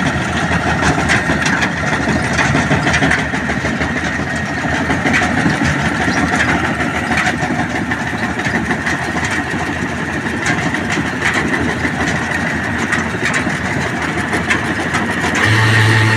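Combine harvester running while harvesting ragi: engine and machinery with a dense rattle and a steady high whine. Near the end a deeper steady hum sets in.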